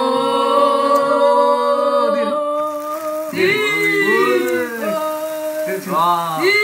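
Singing, with long held notes for the first couple of seconds, then sliding, swooping vocal phrases, with a second burst near the end.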